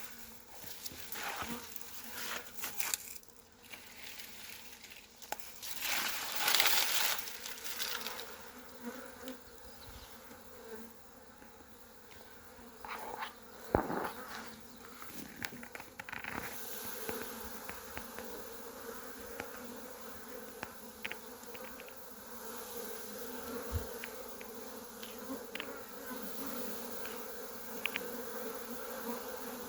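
Honeybee colony buzzing steadily around an opened hive, a continuous hum disturbed by the inspection. Over it come handling noises from working the hive: a loud rustling, scraping stretch about six seconds in, scattered clicks, and a sharp knock about fourteen seconds in.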